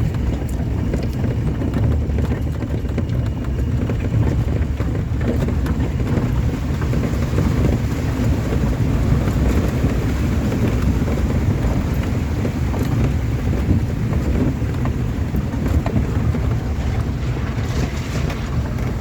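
Moving road vehicle: a steady low rumble of engine and road noise, with wind buffeting the microphone.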